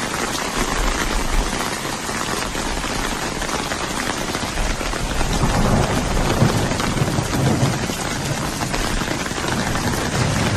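Heavy rain pouring down steadily in a dense hiss, with a few low rumbles about halfway through.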